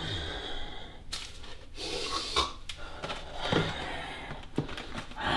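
Rummaging in a kitchen cupboard: items on the shelf knock and scrape, and a packaged box rustles as it is handled, with a few sharp knocks about a second apart.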